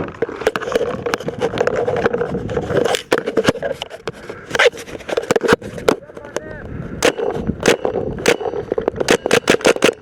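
Paintball markers firing single pops at irregular intervals, with a quick string of shots near the end.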